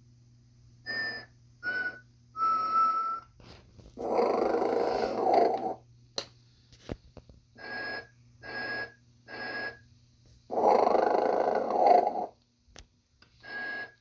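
Snoring Santa toy playing its snore sound: three short whistling toots, then a long snore, repeated twice.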